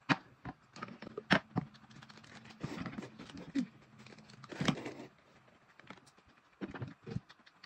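Scattered short clicks and rustles of a meal at a table: noodles being slurped, and a small sachet of soy milk powder snipped open with scissors and tipped into a glass jar.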